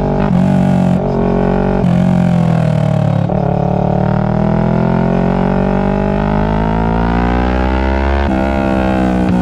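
Kawasaki Ninja 650's parallel-twin engine running through a Two Brothers full-system exhaust while riding, a deep droning exhaust note. Its pitch changes in a few abrupt steps and then climbs steadily for several seconds before dropping again near the end, as when the rider accelerates through the gears.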